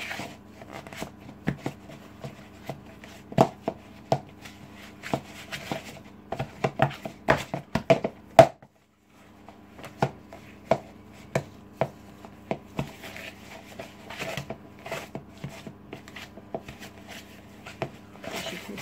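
Wooden spoon beating butter and sugar together in a plastic mixing bowl: irregular knocks and scrapes of the spoon against the bowl, over a steady hum from the preheating oven's fan. The sound cuts out briefly about eight and a half seconds in, just after the loudest knock.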